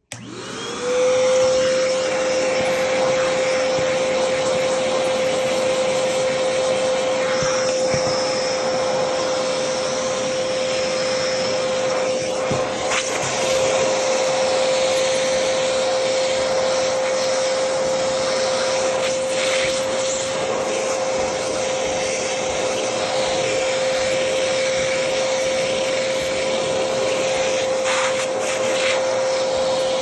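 Vacuum cleaner switched on and drawing pastel dust off carpet through its hose and crevice nozzle: the motor whine rises for about a second as it spins up, then runs steadily over a rushing hiss, with a few faint clicks along the way.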